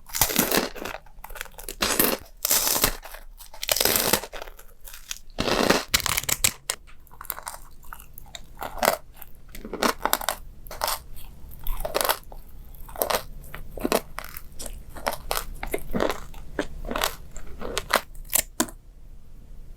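Someone biting and chewing crunchy food: a run of sharp crunches, heavier through the first six seconds, then lighter, quicker chewing crunches.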